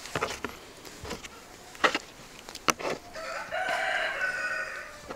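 A rooster crows once, a drawn-out call of about two seconds in the second half. Before it, a few sharp taps and clicks as lemon slices are pulled apart and dropped onto a wooden cutting board.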